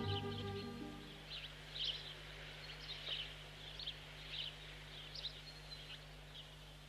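A small bird chirping: short high chirps repeated about two a second over a faint steady low hum, as string music fades out in the first second.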